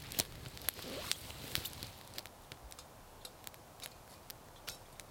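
Campfire of burning wood crackling, with sharp irregular pops, plus rustling in the first two seconds as the fire is tended; after that the pops thin out to a few a second.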